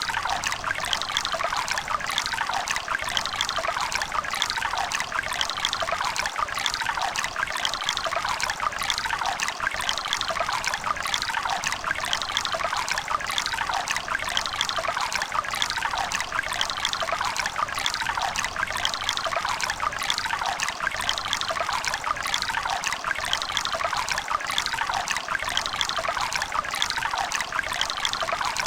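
River water running and splashing steadily over stones, a continuous babbling with bright splashing textures and little low rumble.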